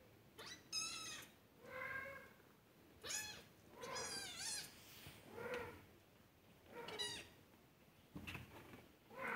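British Shorthair kittens mewing: a run of short, high-pitched meows, about one a second, some rising and falling in pitch.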